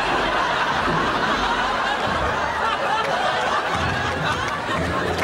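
An audience laughing steadily, many voices blended into one continuous sound.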